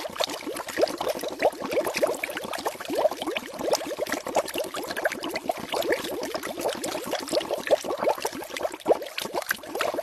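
Hands working in a clear bowl of water, a steady run of small splashes and bubbly plops.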